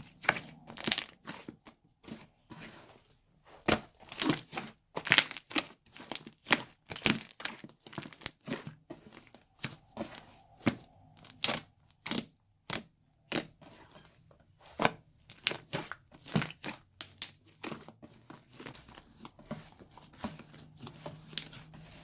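Slime being squished, stretched and pulled apart by hand, giving irregular sticky crackles and sharp pops that come in clusters and thin out near the end.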